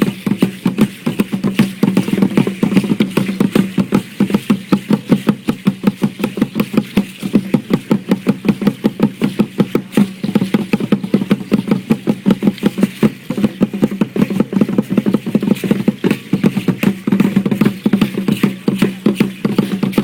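Drums and percussion beating a fast, even rhythm for a prehispanic dance, without pause.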